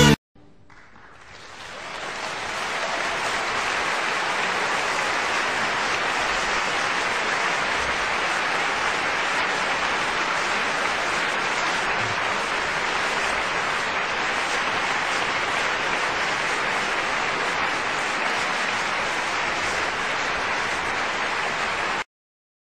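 A crowd applauding: a dense, steady clapping that fades in over the first two seconds, holds level, and cuts off abruptly near the end.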